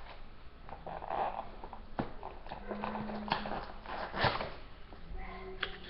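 An alarm clock radio being worked out of its cardboard box and packing: rustling and scraping with several sharp knocks, as it is hard to get out.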